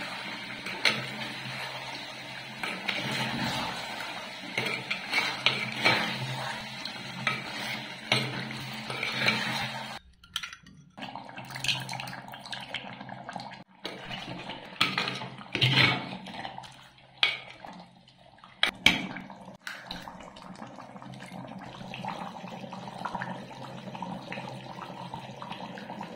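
Metal spoon stirring and scraping chicken livers in a heavy black pot, with repeated sharp clinks against the pot over the sizzle of cooking oil and a low steady hum. The sound drops out briefly a few times at edit cuts.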